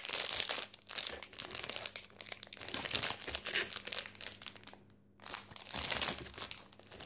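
Crinkly toy-pack wrapper being unwrapped and crumpled by hand, giving dense crackling in clusters, with a short pause about five seconds in.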